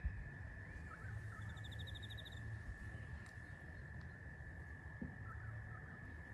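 Quiet outdoor ambience: a steady high-pitched hum throughout, with a few faint bird chirps and a brief fast trill about one and a half seconds in.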